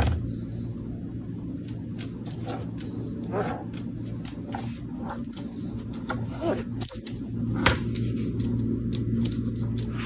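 A black-capped lory's beak pecking and nibbling at an Oreo cookie on a stone countertop: irregular sharp taps and clicks, a few a second, over a steady low hum.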